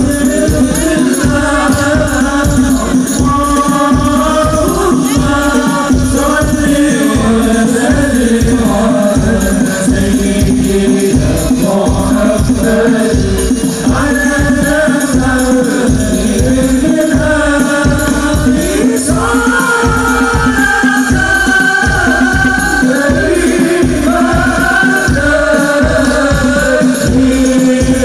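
Hadroh ensemble performing sholawat: voices singing a winding devotional melody over a steady beat of frame drums and bass drum.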